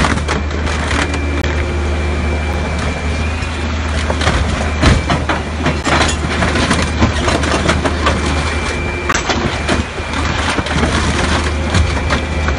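Scrap-handling grab machine's engine running steadily while its grapple claw crushes a Ferrari's bodywork, with repeated cracks and crunches of breaking panels and glass.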